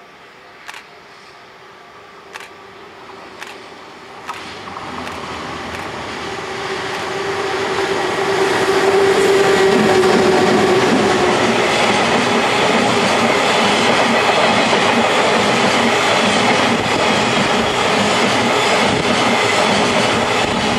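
A freight train hauled by an EH200 electric locomotive approaches, growing louder, with four sharp clicks of wheels over rail joints in the first few seconds. A string of tank wagons then rolls past close by in a steady loud rumble and clatter.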